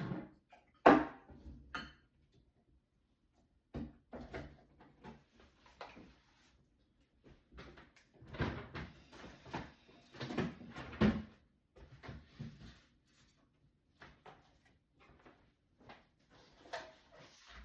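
Irregular knocks and clatter of bottles and food containers being picked up, moved and set down on fridge shelves, with the fridge's door and drawers opening and closing. The loudest knock comes about a second in.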